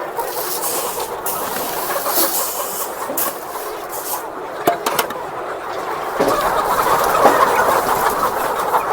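A large flock of chickens clucking together in a dense, continuous chatter that grows louder about six seconds in, with a couple of sharp clicks.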